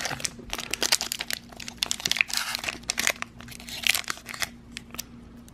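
Foil booster-pack wrapper crinkling and crackling in quick, irregular bursts as it is pulled from the box and handled.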